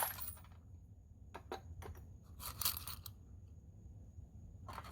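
Handling of an opened coin bank and its coins: a few light clicks, then a brief scraping rustle about two and a half seconds in.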